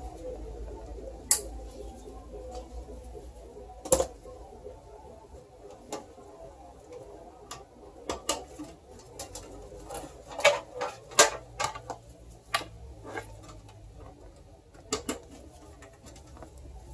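Irregular clicks, taps and knocks of computer parts and cables being handled and fitted into a PC case, a few of them sharp and loud, over a faint low hum.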